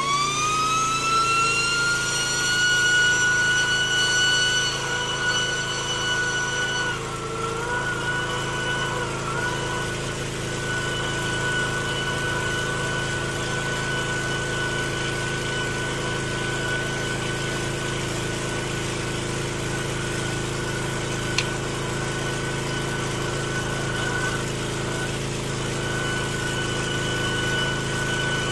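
Gas-engine pressure washer driving a sewer jetter: a steady engine drone with a high whine that climbs in pitch over the first couple of seconds, then holds steady as the jetter hose is fed into the drain. A single brief click about two-thirds of the way through.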